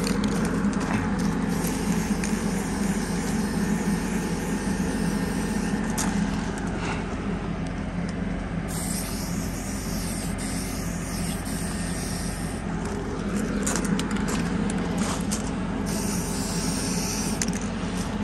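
Aerosol spray-paint can hissing in several long bursts as it coats a newly welded steel pintle hitch, over a steady engine drone.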